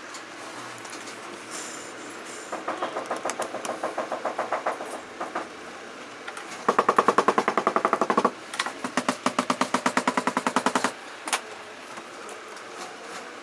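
Industrial sewing machine stitching through sheepskin leather panels in three runs of rapid, even stitches, the middle run the loudest and fastest, with pauses between as the panel is repositioned. A single click follows shortly after the last run.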